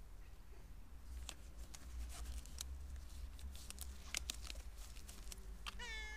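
Disposable gloves being pulled on, giving scattered crinkles and snapping clicks, then a domestic cat meows once near the end.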